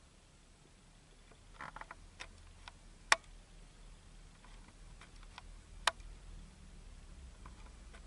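Faint handling clicks and ticks over a low steady hum: a quick cluster of soft ticks about a second and a half in, then two sharp single clicks about three seconds apart.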